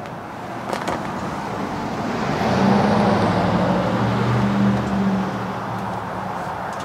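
A motor vehicle driving past, its engine hum and tyre noise swelling about two seconds in and fading away over the next few seconds.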